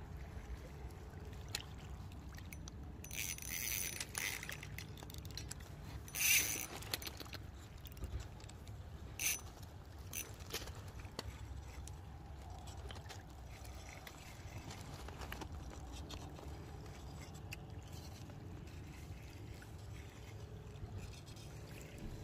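Steady wind rumble on the microphone at the water's edge, with a few short hissing bursts about three, six and nine seconds in, the one near six seconds the loudest, while a hooked fish is played on a bent rod.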